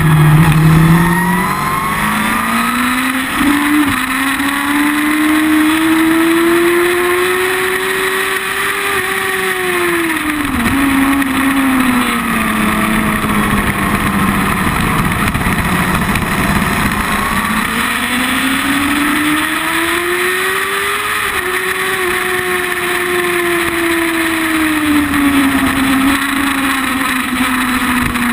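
Sport motorcycle with a carbon slip-on exhaust being ridden hard: the engine note climbs slowly, drops sharply about ten seconds in, then climbs again and falls away near the end as the bike slows and leans through a corner. A steady rush of wind runs under it.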